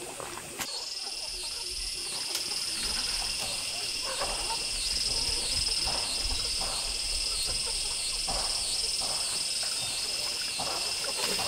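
High-pitched insect chorus, a steady chirring that pulses about twice a second, with a few faint short sounds underneath.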